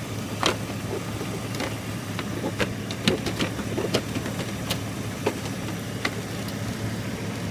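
A 2000 GMC Sierra's engine idling steadily, with sharp clicks and light knocks scattered through it from plastic lamp housings being handled and pulled loose.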